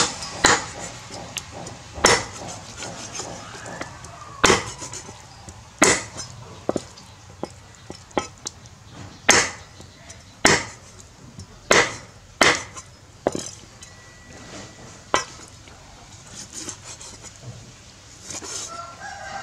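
A cleaver chopping raw chicken into pieces on a thick wooden chopping block: about a dozen sharp single chops, irregularly spaced, one every second or two.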